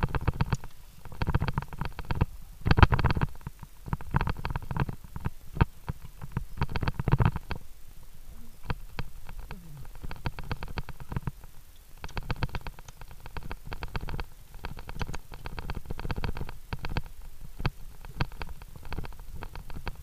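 Handling noise on a body-worn PNJ Cam 23 action camera: rapid scratchy rustling and rubbing against the camera in uneven bursts a second or two long as the climber moves on the via ferrata.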